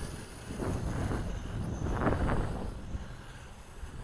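Gusty wind buffeting the microphone, a low rumble that swells twice, about half a second in and again around two seconds in. Under it runs a faint, steady, high whine from the small quadcopter's motors in flight.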